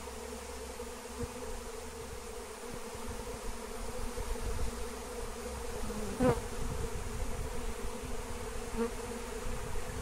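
A honeybee swarm buzzing, a steady dense hum; about six seconds in, one brief louder buzz rises in pitch.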